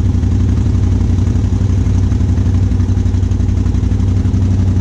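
Utility ATV engines idling steadily, an even low pulsing putter with no revving.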